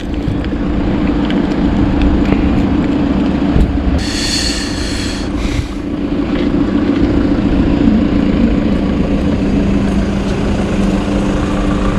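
Steady low machine hum with two held tones. About four seconds in comes a brief high hiss lasting over a second.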